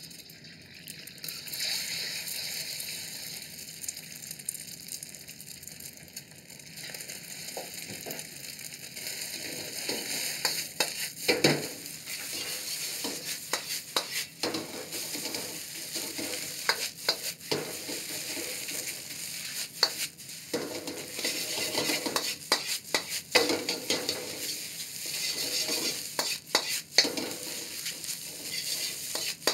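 Beaten egg sizzling in hot oil in a wok, then rice stir-fried with it. From about a third of the way in, a steel ladle repeatedly scrapes and clanks against the wok over the steady sizzle.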